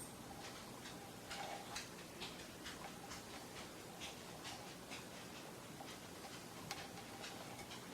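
Faint, irregular light clicks and ticks, a few a second, from hands and a glue bottle working around a woofer's foam surround and metal frame while a bead of glue is laid down, over a low room hiss.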